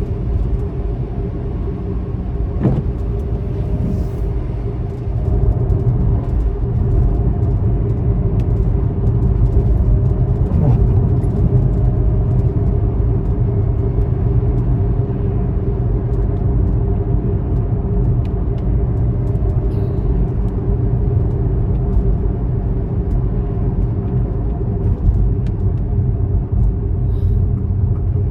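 A car being driven: steady low rumble of engine and tyre noise, a little louder from about five seconds in.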